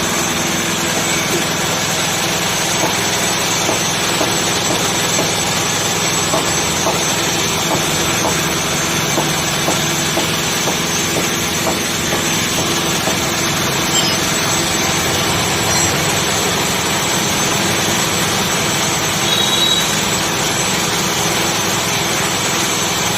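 Air compressor motor running steadily, a constant, even mechanical drone, supplying air for spray-painting a motorcycle.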